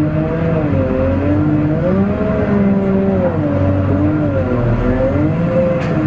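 Cat 950M wheel loader's diesel engine, heard from inside the cab, its speed rising and falling again and again as the loader works. A short click comes near the end.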